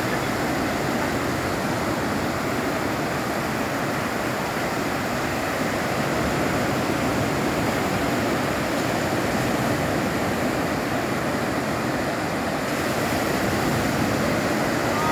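Sea surf breaking and washing up the beach, a steady rush of water.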